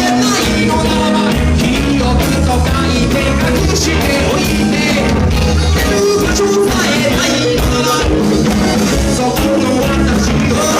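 A band playing a rock song live, with singing, recorded on a phone.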